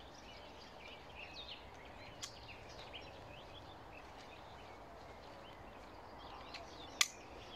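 Birds chirping and singing faintly in the background, with a sharp click about two seconds in and a louder one near the end.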